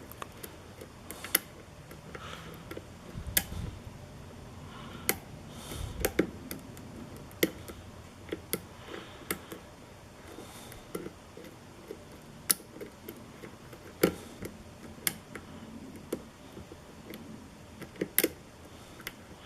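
Lock pick and tension wrench working the pins of a five-pin challenge lock: irregular sharp metallic clicks and ticks, about fifteen louder ones scattered among fainter scraping, as pins are lifted and set.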